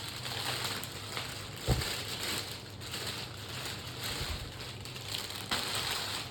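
Packaging crinkling and rustling as a boxed shower filter unit is unwrapped and handled, with a dense run of small crackles and a sharper knock about two seconds in and again near the end.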